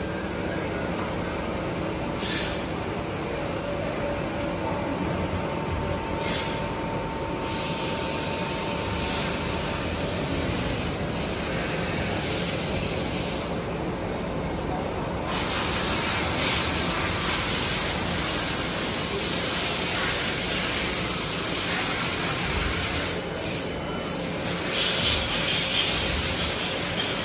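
DMG DMU 50 ERGOline machining centre running, a steady whir and hiss from inside its enclosure. Short spurts of spraying come every few seconds at first. About halfway through, a louder continuous hiss of coolant spraying into the work area takes over.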